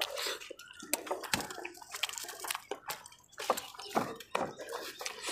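Wet eating sounds: hands working rice and chicken curry on steel plates, with chewing and lip smacking, heard as a string of irregular wet clicks and smacks.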